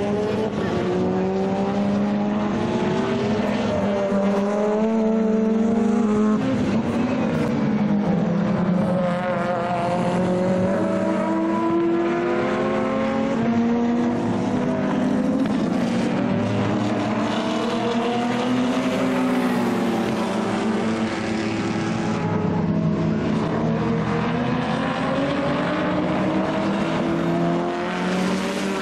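Race cars' engines at full racing speed, the notes climbing and dropping as they rev through the gears and brake for corners, several engines overlapping at once.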